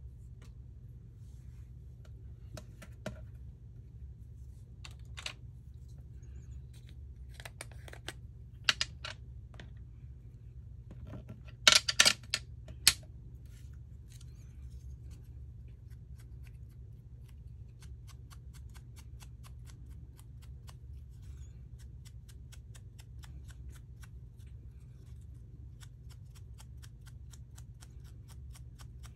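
Hand work with paper and small craft tools on a tabletop: scattered sharp clicks and snips, a few loud snips about twelve seconds in, then a long quick run of fine, even ticks.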